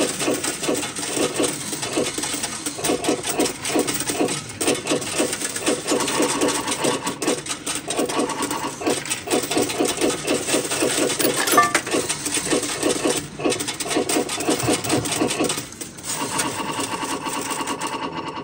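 Coins being fed one after another into a fruit machine's coin slot, clinking and rattling through the coin mechanism in quick succession as the credit is topped up.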